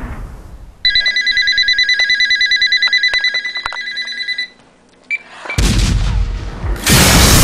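A telephone ringer rings in a fast, warbling trill for about three and a half seconds and then stops. About five and a half seconds in, a loud rushing noise like a blast starts.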